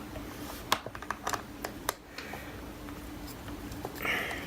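Small Phillips screwdriver working the bottom-case screws out of a 2009 unibody MacBook: scattered light clicks and taps of the driver tip and screws, irregular, several in the first two seconds. A short hiss near the end.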